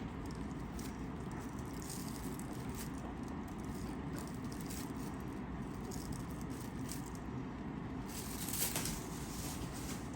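Faint rustling and light clicks as sliced deli meat and its packaging are handled, over a steady low hum, with a louder rustle about eight and a half seconds in.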